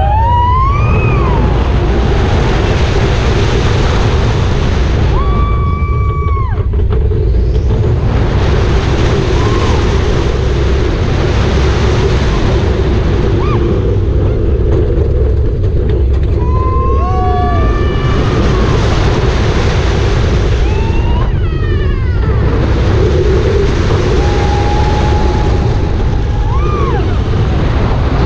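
Roller coaster ride heard from the front of the train: heavy wind rushing over the microphone and a steady low rumble from the train on the steel track. Riders scream and whoop several times, in short rising-and-falling cries.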